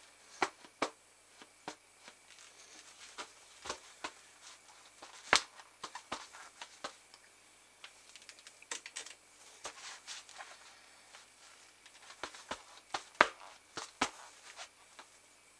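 Latex-palmed goalkeeper gloves handling and gripping a football: irregular soft taps and rubs of glove on ball, with a few sharper slaps among them.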